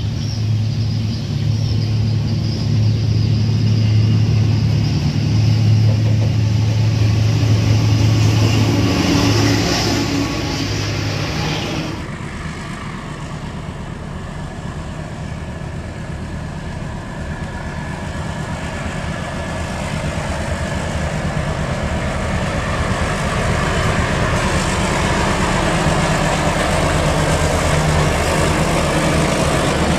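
Diesel locomotive engines running as passenger trains pass, with a steady low engine hum. About 12 s in the sound changes abruptly to a D13E diesel-electric locomotive hauling coaches, which grows louder toward the end.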